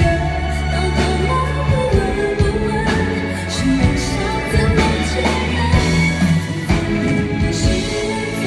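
A woman singing a Mandarin pop ballad live into a microphone, backed by a band with bass and drums.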